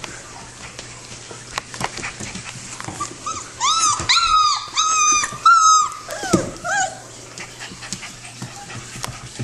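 Shepadoodle puppy whining: a quick run of about five short, high, arched whines a few seconds in, then two lower falling whimpers. Small clicks and scratches are heard throughout.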